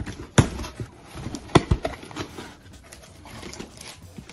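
Cardboard shipping box being opened by hand: packing tape pulled free and the flaps torn and folded open, with rustling and a few sharp cardboard cracks, the loudest pair about a second and a half in.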